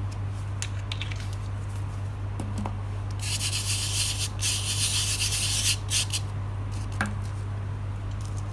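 A palm rubbing colored sand over a sticky sand-painting sheet, which presses the sand onto the adhesive. It makes a dry scraping hiss for about two and a half seconds in the middle, with a few light taps before and after, over a steady low hum.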